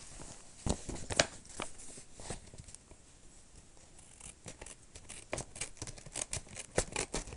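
Scissors snipping at a mail package: a few scattered sharp snips, then quicker clicking snips in the last few seconds.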